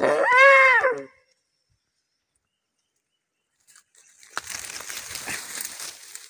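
A snared deer gives one loud, drawn-out cry lasting about a second, its pitch rising then falling. From about four seconds in, leaves and undergrowth rustle and crackle as someone pushes through the brush.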